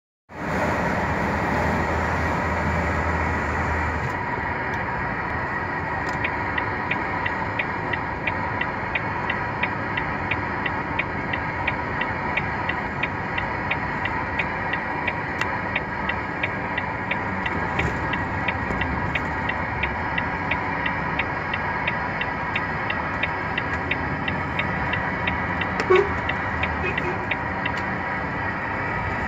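Truck cab interior while driving: the diesel engine and road noise run steadily. A regular light ticking, about three times a second, sounds through most of it, and a brief sharp sound stands out near the end.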